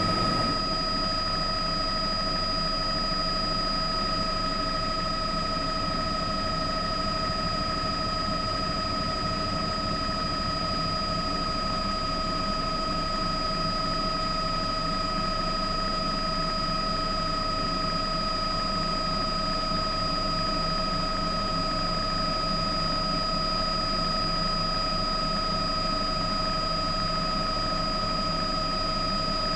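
News helicopter running in flight: a steady engine and rotor drone with high, unchanging whines.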